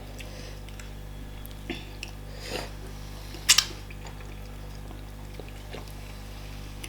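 Close-up eating sounds of starch fufu and banga soup: a few scattered wet smacks and clicks of chewing and handling the food, the loudest a quick pair about three and a half seconds in, over a steady low hum.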